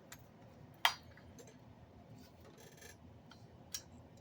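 A few sparse clicks and taps of small parts being handled while the exhaust gasket is fitted on the chainsaw, with one sharper click about a second in and a brief rustle a little before the end.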